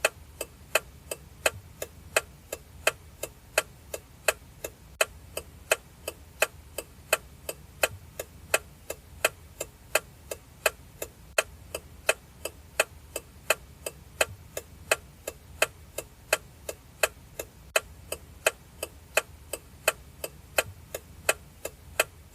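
Car turn-signal indicator clicking steadily at an even rhythm of about three sharp clicks a second, the sound of the flasher while the indicator is on.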